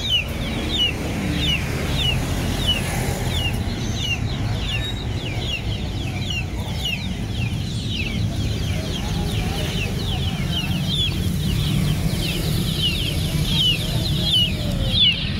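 Caged birds chirping nonstop, a steady stream of short, high chirps that fall in pitch, several a second, over a low background rumble.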